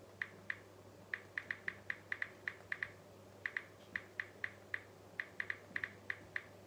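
Smartphone touch-keyboard clicks: short, sharp clicks in an irregular run, about two to four a second, over a faint steady low hum.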